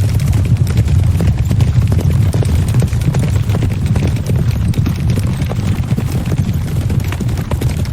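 Horse hooves clip-clopping: many irregular sharp knocks over a steady low rumble.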